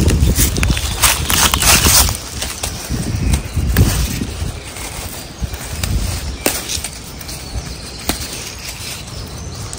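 Leafy plant stems being handled and picked, with crackly rustling bursts in the first two seconds and a few sharp clicks later, over a low rumble of wind on the microphone.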